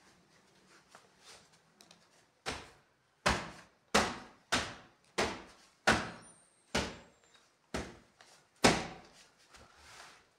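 A run of about nine sharp knocks on wooden wardrobe doors, each with a short ringing tail, coming about every two-thirds of a second; the last is the loudest.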